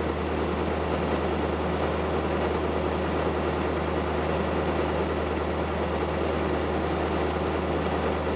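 2011 Ford F-350's 6.7-litre Power Stroke V8 turbodiesel idling steadily at about 1,000 rpm while warming up after a cold start at −30 °C, heard from inside the cab.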